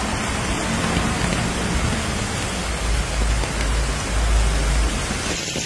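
Heavy rain pouring down in a dense, steady hiss, with a low rumble underneath that swells for a couple of seconds past the middle.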